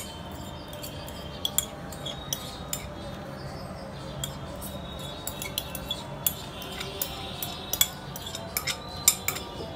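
Scattered light clinks and taps of a glass bowl and utensil as partly cooked basmati rice is tipped and scraped into a nonstick pot, over a faint steady hum.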